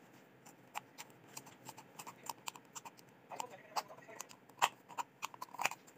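Scissors snipping into a thin plastic soda bottle: a quick, irregular series of sharp clicks, several a second, the loudest about four and a half seconds in and again near the end.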